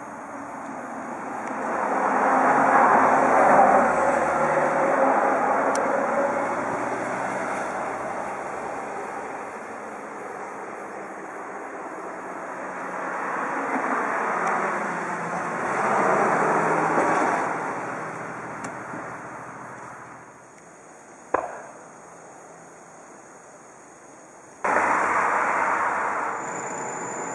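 Passing vehicle noise, rising and fading slowly twice, loudest about three seconds in and again around fifteen seconds in. A single sharp click comes about twenty-one seconds in.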